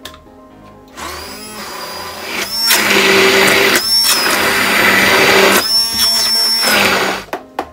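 Hand-held immersion blender running, puréeing cooked vegetables in a plastic tub. The motor starts about a second in, runs with a high whine and a few short breaks, and cuts off near the end.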